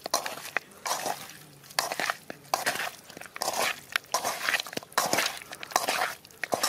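A hand mixing marinated chicken pieces with sliced onion and green chillies in a steel pan: irregular wet, crunchy strokes of the food squishing and scraping against the metal, about two a second.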